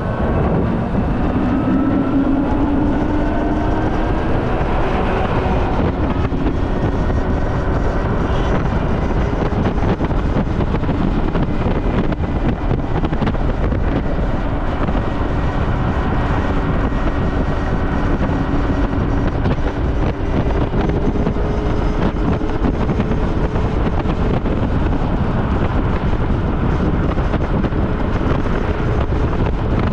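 Steady wind rushing over the microphone while riding a Super Soco TC Max electric motorcycle, with the faint whine of its electric motor. The whine rises steadily over the first few seconds as the bike speeds up, then drifts up and down with speed.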